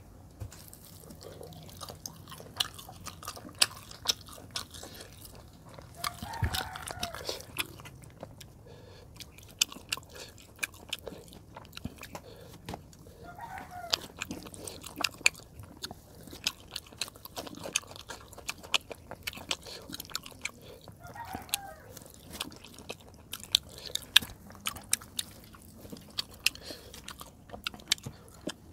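Close-miked eating sounds of chicken-leg curry and rice eaten by hand: chewing with many sharp, wet mouth clicks and smacks.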